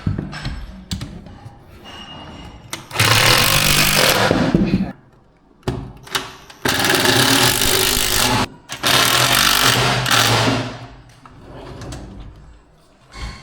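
A power tool running in three bursts of about two seconds each, with quieter clicks and knocks between them.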